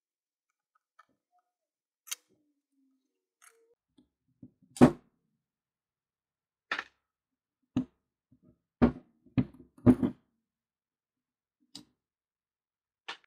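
Scattered short clicks and knocks at irregular intervals. The loudest is about five seconds in, and there is a quick cluster of three or four around nine to ten seconds.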